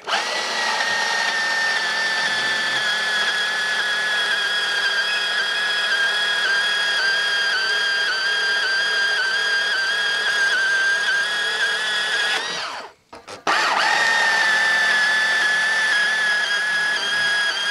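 Makita DPB180 cordless portable bandsaw running an 8–10 teeth-per-inch blade through metal flat bar: a steady motor and blade whine. About twelve and a half seconds in it winds down and stops, then starts again about a second later and carries on cutting.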